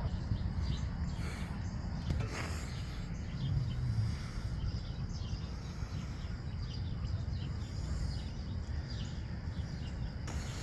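Small birds chirping, many short calls, over a steady low rumble, with a brief rustle about two seconds in.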